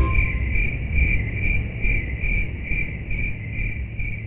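Cricket chirping steadily, about two short chirps a second, over a low steady rumble.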